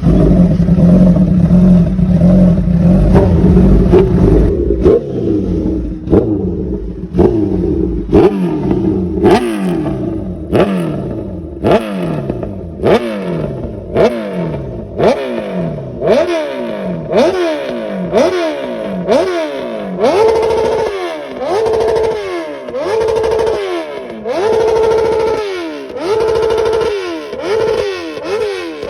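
Honda CBR650R inline-four engine, loud, running steadily at first, then revved in repeated throttle blips from about eight seconds in, each rev rising sharply and falling back, roughly one every second or so; later some revs are held briefly at a higher pitch.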